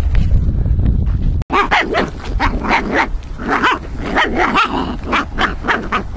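Small puppies yipping and whimpering in short, high cries, several a second, from about a second and a half in: the puppies are hungry. Before that, low wind rumble on the microphone.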